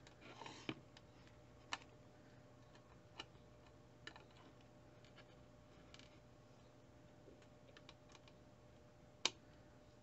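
Near silence with a few scattered small clicks and taps as a graphics card is handled, the sharpest near the end.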